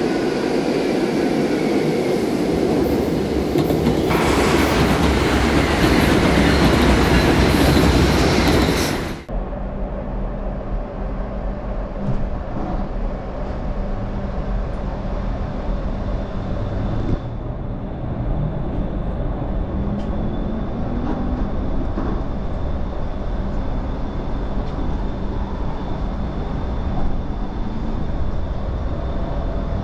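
Low-floor light rail tram running: a steady rumble of wheels on rail with a faint, steady high whine. About nine seconds in, a louder, harsher rushing noise cuts off abruptly, leaving the quieter running sound.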